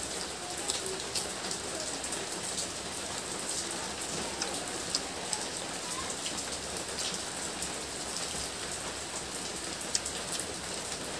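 Steady rain falling, an even hiss, with scattered small sharp ticks through it.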